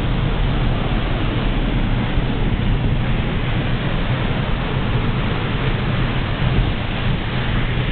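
Water pouring over a low concrete dam spillway into churning white water below: a loud, steady rush.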